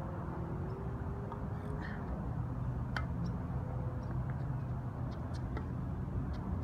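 A few sharp pops of tennis balls struck by rackets, the clearest about three seconds in, over a steady low rumble.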